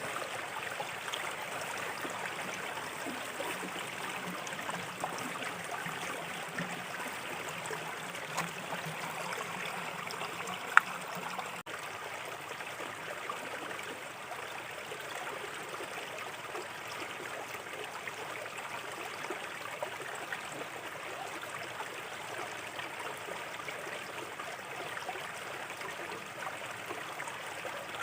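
Small river flowing in a steady trickle and babble, with one sharp click about ten seconds in.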